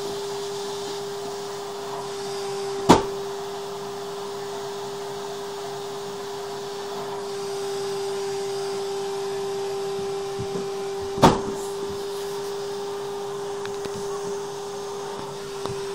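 A vacuum cleaner running with a steady hum. Two sharp knocks come through it, about 3 seconds in and about 11 seconds in.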